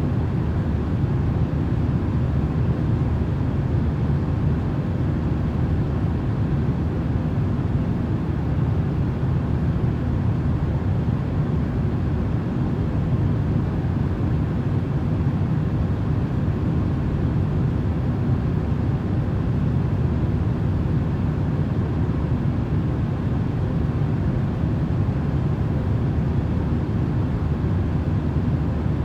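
Steady, deep rumbling drone of airplane cabin noise, played as continuous white noise, with a faint hum above the rumble.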